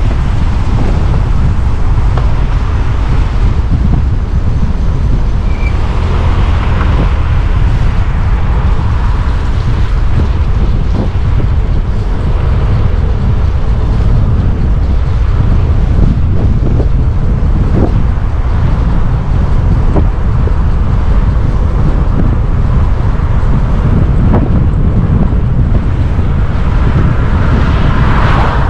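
Wind buffeting the microphone while riding a moving e-bike: a loud, steady low rumble with a few faint knocks.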